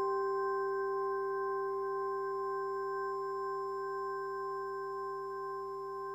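Electronic synthesizer drone: a chord of several steady, pure-sounding tones held unchanged, its loudness easing down slightly.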